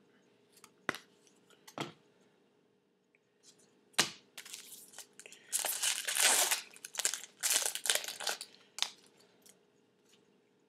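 A few light taps, then crinkling and tearing of a foil trading-card pack wrapper being opened and handled, densest in the middle and stopping a couple of seconds before the end.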